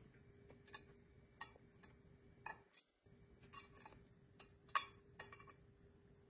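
Scattered light taps and clicks as pancake halves are laid into a ceramic casserole dish, the loudest a little before five seconds in.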